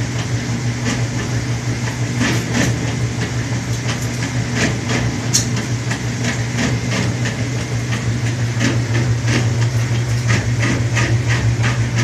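A laundry machine running with a steady low hum, with irregular light clicks and knocks over it.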